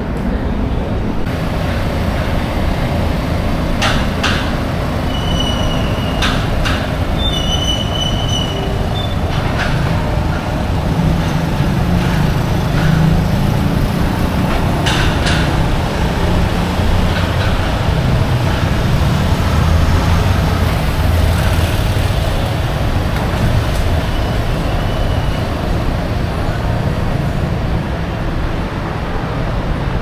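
City street traffic: a steady low rumble of passing vehicles that swells a couple of times, with a few sharp clicks and short high squeaks in the first half.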